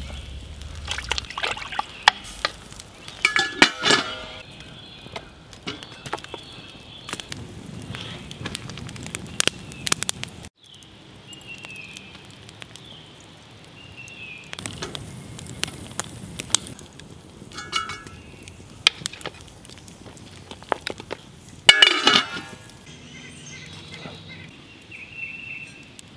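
Cooking at a campfire pot: beef rib pieces splashing into a steel pot of broth, and scattered clinks and knocks of the metal pot, lid and bail handle, the loudest about four seconds in and again near the end.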